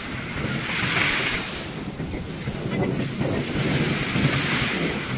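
Small waves breaking on a sandy shore and washing up the beach, swelling twice, with wind buffeting the microphone.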